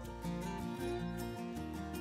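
Background music: a light plucked guitar tune, its notes changing every half second or so.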